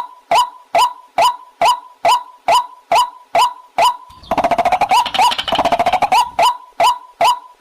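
White-breasted waterhen calling: a short, harsh rising note repeated about twice a second. Around four seconds in it breaks into a couple of seconds of fast rattling chatter, then the steady repeated notes return.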